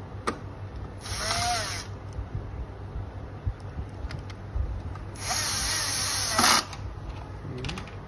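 Cordless drill-driver driving a screw into a plastic dehumidifier casing, in two short runs: one of about a second near the start and a longer one of about a second and a half midway.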